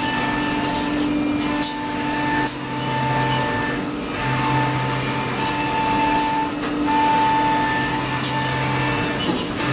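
CNC milling machines cutting plastic prototype parts: a steady spindle and motor whine, with tones that cut in and out every second or two as the axes move, and a few short hisses.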